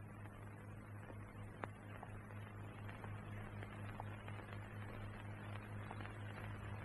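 Quiet, steady low hum under a faint hiss, with a few faint clicks scattered through it.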